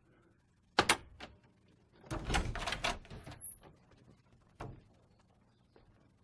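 A door's round knob and latch being worked: a couple of sharp clicks about a second in, about a second of rattling clicks from the knob and latch, then one more click later as the door is opened.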